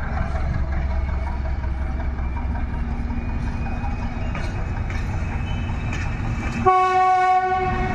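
SM42 ('stonka') diesel shunting locomotive running with a low engine rumble, then near the end sounding its horn once, a steady tone held for about a second and louder than everything else.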